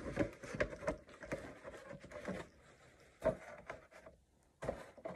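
Rigid 3D-printed PLA helmet pieces being handled and fitted together: light clicks, knocks and rubbing of plastic against plastic, with a louder knock a little after three seconds in and another just before the end.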